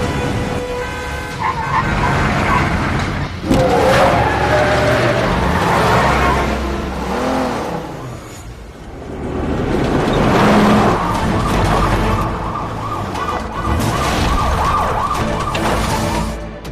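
Police sirens wailing over vehicle engine noise, with a loud bang about three and a half seconds in. A fast warbling siren runs through the last few seconds.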